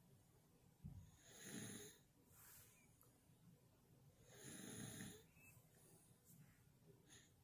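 Faint, slow nasal breathing close to the microphone, two breaths about three seconds apart, with a soft low thump about a second in.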